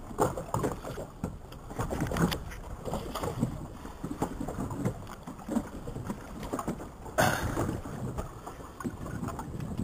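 Sea water sloshing and splashing against a camera held at the surface, which dips under the water. It comes in irregular gushes, with one louder burst of splashing about seven seconds in.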